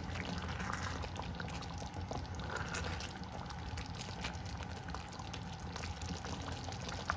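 Thick tofu sauce bubbling and sloshing in a clay pot as a wooden spoon stirs through it, with many small pops and wet clicks over a low steady hum. There is a sharper tap near the end.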